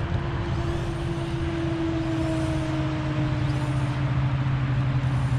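A steady low engine drone, with a fainter tone above it slowly falling in pitch.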